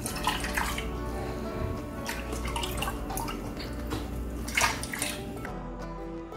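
Chicken stock poured by the ladleful through a steel mesh strainer into a pot: several separate splashing pours, the loudest near the end.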